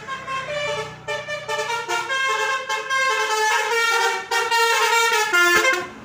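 Telolet basuri horn on a bus: a multi-tone air horn playing a quick melody of short notes stepping up and down. It is heard over the low hum of the bus engine in the first couple of seconds and cuts off suddenly just before the end as the bus passes close.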